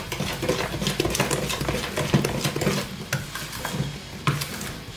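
A spoon stirring thick muffin batter in a plastic mixing bowl: quick, irregular scraping and tapping, with a sharper click about four seconds in.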